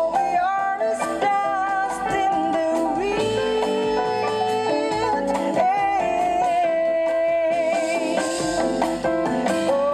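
Instrumental music: a sustained lead melody sliding between notes over plucked guitar.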